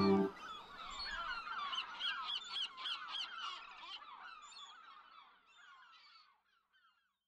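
The song's final chord breaks off just after the start, leaving a flock of birds calling, many short calls overlapping, that fade out over about six seconds.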